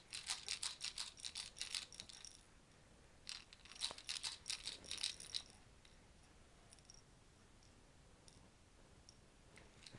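A baby's plastic rattle toy shaken, in two spells of quick rattling over the first five seconds or so, the second after a short pause.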